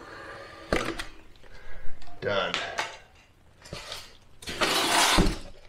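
Rigid EPS foam panels of an ICF block being handled and pulled apart: a few sharp knocks and clatters, a short squeak of foam rubbing on foam, then a longer scraping rub near the end.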